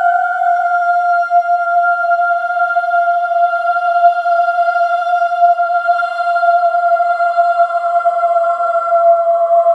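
Eerie, theremin-like suspense drone: one long wavering held tone that sinks slowly in pitch, with faint high overtones above it.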